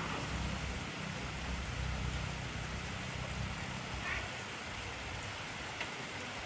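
Heavy rain falling steadily, an even hiss with the odd single drop tick near the end. A low rumble underneath fades out over the first four seconds.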